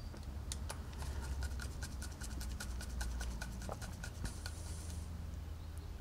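Small rapid clicks and scraping, several a second, from a screwdriver turning screws on a golf-cart carburetor being put back together, over a steady low hum.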